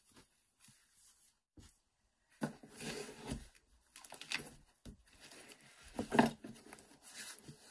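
A hardback book and its paper pages being handled: covers and pages rustling and scraping in irregular bursts, with a sharp knock about six seconds in.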